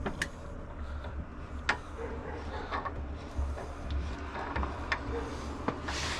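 Light metallic clicks and knocks at irregular intervals from the wood lathe's tailstock parts being handled and worked by hand, over a steady low hum.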